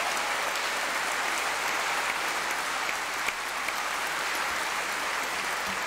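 Large audience applauding, a dense, steady clapping that holds at an even level.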